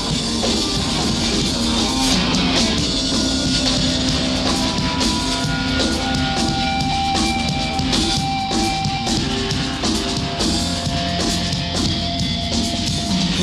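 Rock band playing an instrumental passage between sung lines, with drum kit and guitars and held notes over a dense, steady backing.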